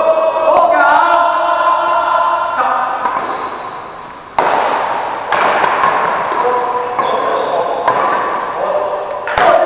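Badminton rally: sharp racket strikes on the shuttlecock, two about a second apart around the middle and one near the end, each ringing on in a large echoing hall. Between the strikes come high squeaks from shoes on the court and players' voices.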